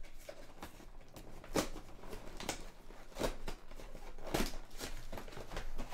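Cardboard and plastic packaging of a Pokémon card collection box being handled and pulled open: rustling, with several sharp crackles spread through.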